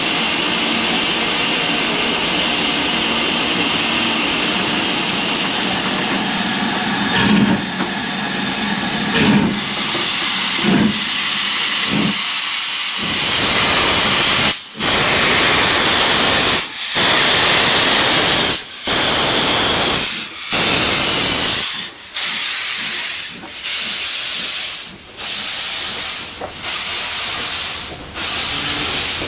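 LMS Jubilee class three-cylinder 4-6-0 steam locomotive 45699 'Galatea' starting a train away from a stand. At first there is a steady hiss of steam, then a few slow chuffs. From about halfway comes a loud hiss from the cylinders, pulsing with each exhaust beat, and the beats come gradually quicker as it gathers speed.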